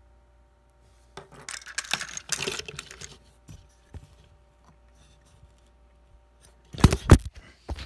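Hard plastic Transformers toy parts handled close to the microphone: a stretch of rustling and clicking, then a few single clicks. Near the end comes a cluster of loud, heavy knocks, the phone recording it being knocked off its stand.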